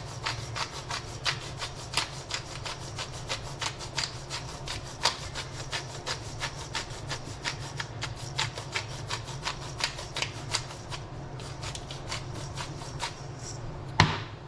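Black pepper grinder twisted by hand over a fish fillet: a rapid grating with crisp clicks, about four a second, that thins out near the end. Then one sharp knock as the grinder is set down on the tiled counter.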